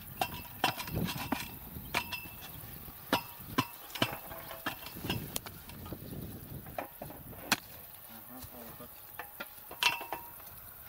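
Irregular sharp metallic clinks and knocks as a steel bar and stones are packed into the hole around a metal post; a few strikes ring briefly with a metallic tone.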